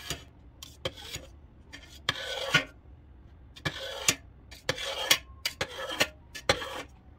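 Kitchen knife cutting set goat-milk curd in a stainless steel pot, making checkerboard cuts: the blade scrapes against the pot in about five short strokes, with a few sharp clicks in between.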